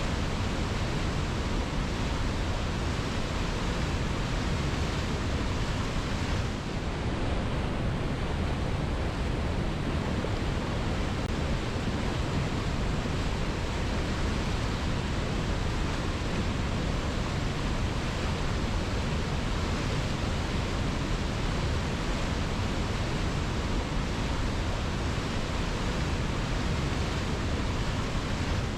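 Waterfall tumbling over rocks: a steady, dense rush of falling water.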